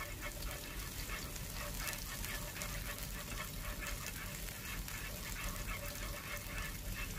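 Chopped scallion bulbs frying in hot oil in a nonstick pan, a steady light sizzle with fine, rapid crackles.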